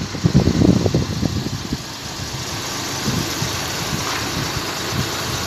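Heavy diesel truck engine idling, with an uneven low rumble for the first second and a half, then running steadily.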